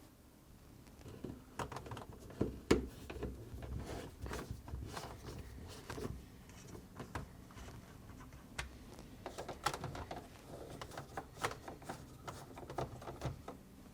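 Scattered light clicks and taps of a 1/4-inch nut driver working on screws and of plastic refrigerator parts being handled, coming at irregular moments.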